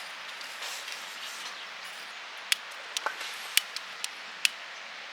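Steady outdoor background hiss, then a quick run of six or seven sharp clicks or snaps starting about halfway through.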